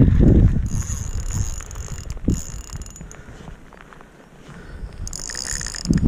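Fishing reel clicking and whirring in two stretches as a hooked chinook salmon is played on a bent rod. Wind buffets the microphone, most strongly at the start.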